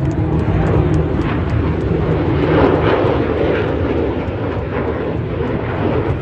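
Jet aircraft flying past at an airshow: a loud, steady engine noise that swells to its peak about three seconds in, then eases a little.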